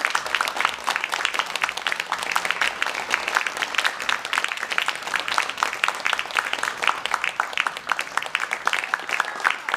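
Audience applauding: many overlapping hand claps, steady throughout.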